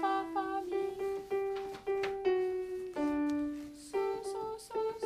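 Kawai digital piano playing a simple melody one note at a time, about two notes a second, with a longer, lower note about three seconds in.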